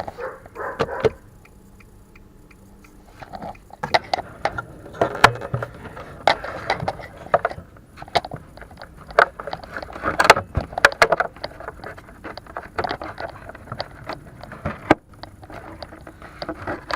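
Handling noise from a car's tail light assembly being worked back into place: irregular scrapes, clicks and knocks of plastic and metal parts, thick from about four seconds in after a few scattered clicks.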